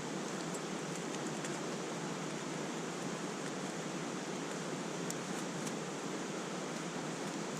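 Steady rush of a mountain stream, an even flowing-water noise with no change in level.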